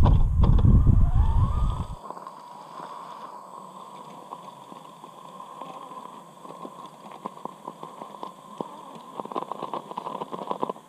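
RC rock crawler's electric motor and gearbox whining as it climbs, with tyres crunching and clicking over loose shale, the clicking growing busier in the last few seconds. In the first two seconds a loud low rumble covers it while the motor whine rises in pitch.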